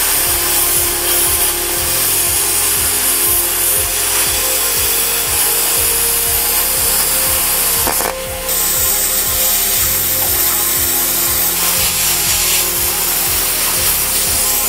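Plasma cutter cutting through the steel of a chainsaw blade: a loud, steady hiss of the cutting arc, with a brief break about eight seconds in before it carries on.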